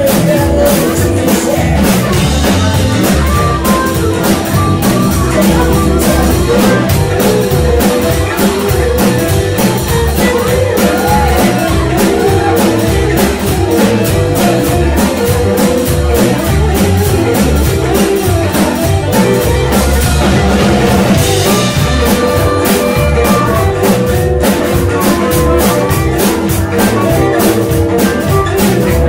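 Live blues-rock band playing electric guitar, drum kit and keyboard to a steady beat.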